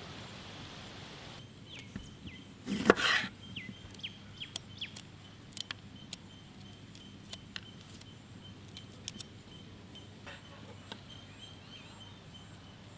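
Kitchen knife cutting limes on a wooden board: scattered sharp taps of the blade on the wood, with a brief louder noise about three seconds in. Faint bird chirps in the background.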